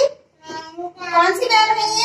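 Young children singing a rhyme together, in drawn-out phrases with a short pause between them.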